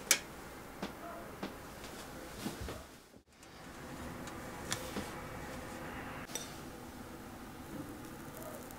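Glass dessert cups clinking against a metal tray as they are set down and shifted: one sharp clink at the start, then a few lighter taps. After a brief silent gap about three seconds in, a few more light clicks of glass and metal.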